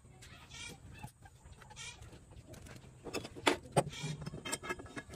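Sharp metal clicks and knocks as a red pipe-clamp head is handled and fitted onto a 3/4-inch metal pipe, the two loudest a little past the middle. Two short farm-animal calls sound in the background near the start.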